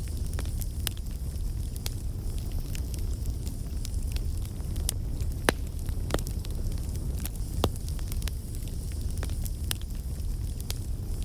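Bonfire burning: a steady low rumble of flames with irregular wood crackles and pops, the sharpest pop about five and a half seconds in.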